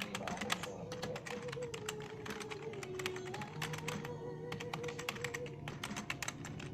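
Rapid computer keyboard typing, many keystroke clicks a second with a brief pause near the middle, over background music with long held notes.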